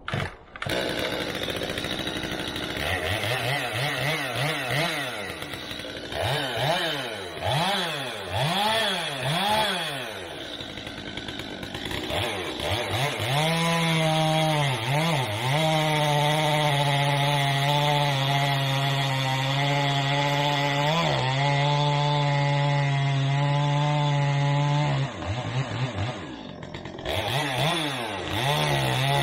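Chainsaw with a freshly sharpened chain, revved up and down several times, then held at full throttle cutting into a firewood log for most of the second half, the engine note dipping briefly a few times and dropping for a moment near the end before going back into the cut.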